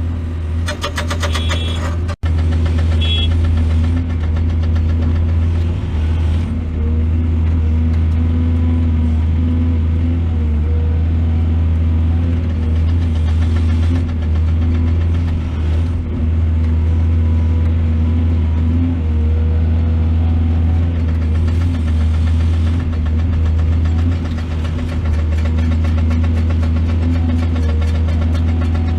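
Heavy diesel earthmoving engine running steadily, a deep constant drone with a slight waver; the sound drops out for an instant about two seconds in.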